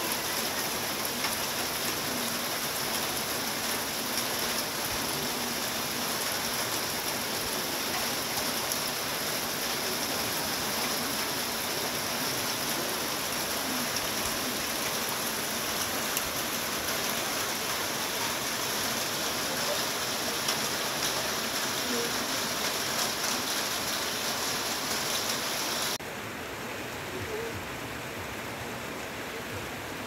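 Heavy rain falling on forest trees and leaves, a dense steady hiss. About 26 seconds in it drops abruptly to a quieter, duller rain sound.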